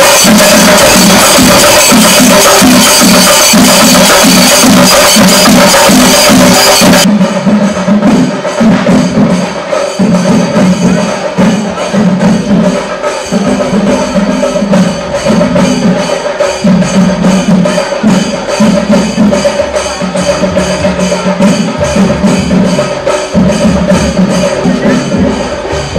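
Chenda drums played with sticks alongside cymbals in a loud, fast percussion rhythm. About seven seconds in the sound changes abruptly to a duller mix in which a steady, even beat carries on.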